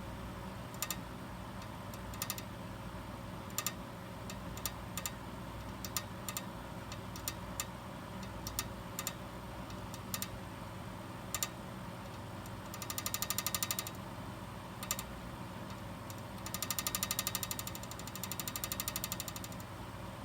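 Abnormal noise from a machine: a steady hum with irregular sharp clicks, and three times a rapid buzzing rattle lasting a second or two.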